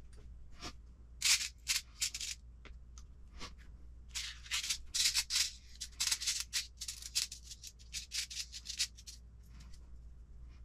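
Small kit hardware (screws, balls and washers) being picked through in a parts tray, with plastic parts handled on the bench. It is a rapid string of short scraping and clinking sounds, busiest around the middle, and it stops about a second before the end.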